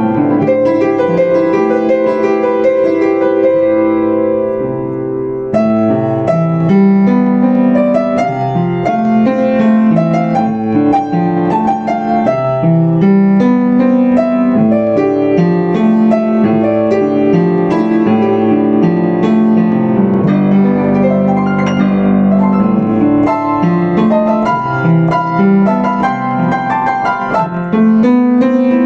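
Yamaha U5 upright piano played solo, many notes struck over sustained chords. A held chord dies away and the playing picks up again with a fresh attack about five seconds in.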